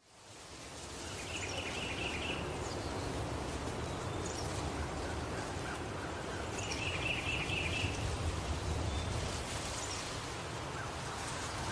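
A steady low rumble with hiss, fading in over the first second, with a short warbling chirp about a second and a half in and again about seven seconds in.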